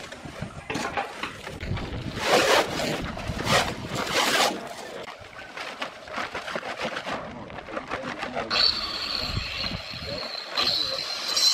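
A wheelbarrow load of sand tipped onto a pile, the sand sliding and scraping off the steel tray in several noisy rushes over the first half. From about two-thirds of the way through, a steady high-pitched whine joins in.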